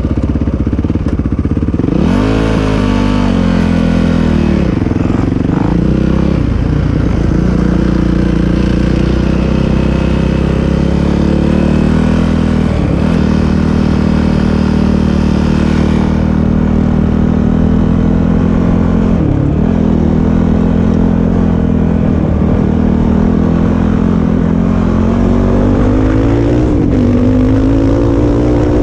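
ATV engine running under way, its pitch climbing with the throttle about two seconds in and dipping briefly and climbing again several times.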